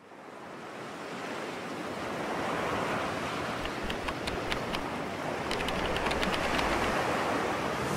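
Ocean surf: a steady rush of breaking waves that fades in over the first couple of seconds and then holds, with a few faint clicks in the middle.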